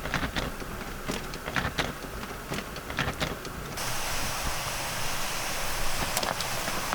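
Blizzard wind noise with a run of short crackles and knocks. About four seconds in it switches abruptly to a steady hiss of wind.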